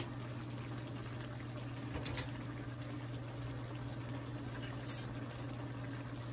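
Food simmering in pots on a stovetop: a steady, soft bubbling over a steady low hum, with a faint clink about two seconds in.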